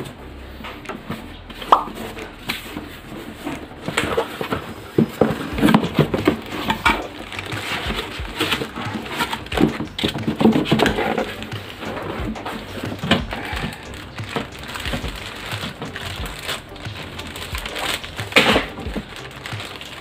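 Plastic bag crinkling and rustling as it is handled and pulled open, with cardboard and foam packing scuffing and scattered small knocks.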